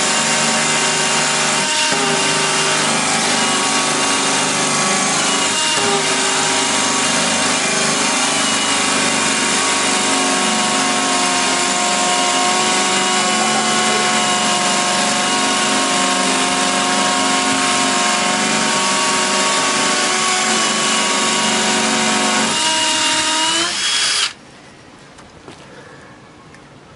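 Two Makita 18V cordless hammer driver-drills (BHP458 and BHP459) drilling together into a concrete block, with steady motor whines over the grinding of the masonry bits. Near the end one drill stops, and the other stops about two seconds later.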